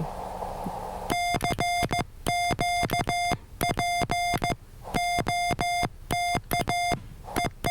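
Morse code (CW) tone from an amateur radio transceiver, one steady pitch keyed on and off in short and long elements (dits and dahs). It starts about a second in and runs as groups of characters with short gaps between them.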